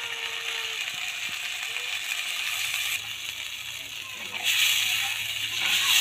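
Masala paste sizzling as it fries in a wok, with a spatula scraping and stirring in the pan; the sizzling gets louder about four and a half seconds in.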